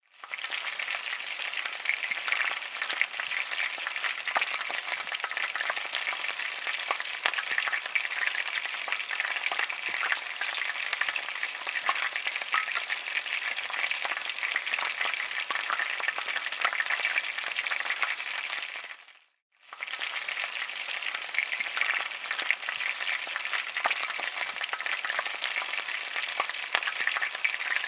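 Dough frying in hot oil: a steady sizzle thick with small crackling pops. It cuts out briefly about two-thirds of the way through, then resumes.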